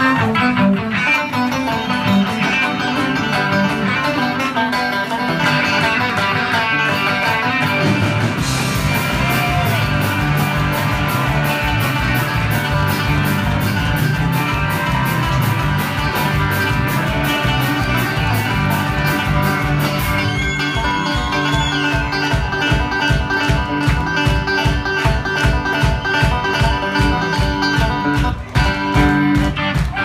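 Live country band playing an instrumental, with a five-string banjo picking alongside electric guitars. Drums come in with a fast, steady beat about eight seconds in.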